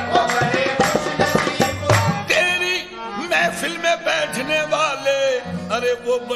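Music: a singing voice over tabla-style hand-drum beats. The drumming thins for a few seconds in the middle while the voice carries on, then the beats return near the end.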